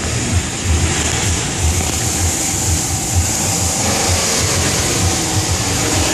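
2014 Chevrolet Camaro SS's 6.2-litre V8 idling, a low uneven exhaust burble heard close up, with a steady hiss over it.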